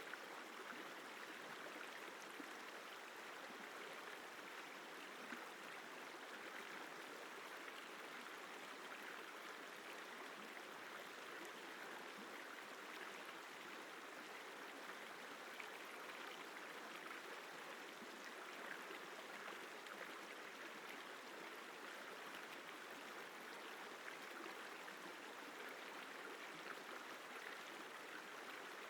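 The Isar River flowing: a steady, even rush of running water.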